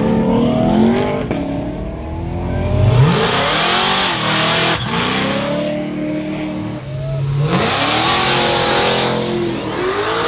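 Big engines of classic Chevrolet convertibles revving and accelerating away one after another, the pitch sweeping up with each pull-away. A broad rushing hiss runs through the middle.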